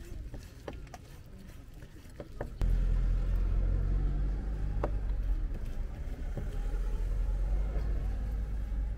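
Cleaver knocking on a wooden cutting board as boiled sundae is chopped into pieces: a few separate sharp chops. About two and a half seconds in a loud, steady low rumble starts suddenly and carries on, with an occasional further chop over it.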